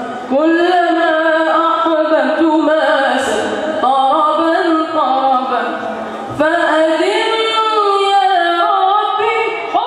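A boy singing a nasheed solo into a microphone, in long phrases of held, ornamented notes that bend up and down. A short breath break about six seconds in.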